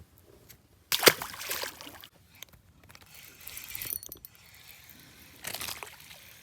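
Fishing reel at work: a loud burst of reel and line noise about a second in, then lighter ratcheting and cranking, with another burst near the end.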